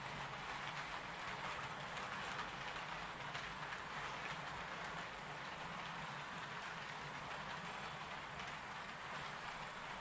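HO-scale Roco model train running on the track: the locomotive's small electric motor whirring and the wheels rolling over the rails in a steady rushing sound, slightly quieter in the second half as it draws away.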